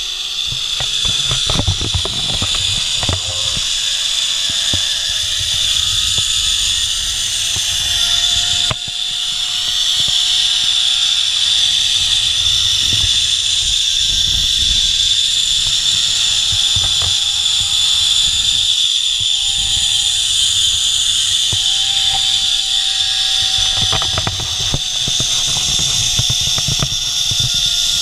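Zipline trolley pulleys running along a steel cable at speed: a steady high whine with a fainter lower tone that slowly rises and falls. Wind buffets the microphone underneath.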